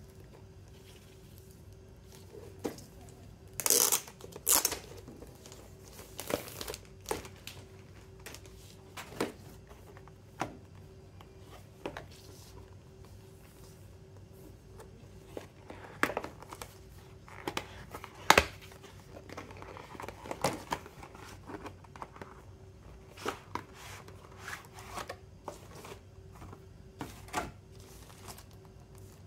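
Hands handling retail packaging: plastic wrap crinkling and tearing in short bursts, with scattered taps and clicks of cardboard and plastic being moved and set down.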